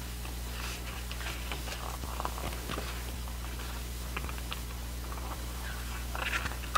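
Pages of a glossy album photo book being turned and handled: soft paper rustles and light taps, with a slightly louder flurry near the end, over a steady low hum.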